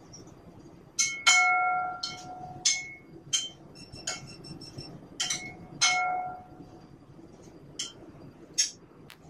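Metal serving utensils clinking against a salad bowl while tossing arugula in vinaigrette: about a dozen sharp clinks, two of them, about a second in and around six seconds in, leaving the bowl ringing briefly.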